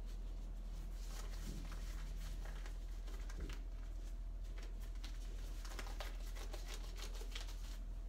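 Faint rustling and small clicks of disposable gloves being pulled on, over a steady low hum.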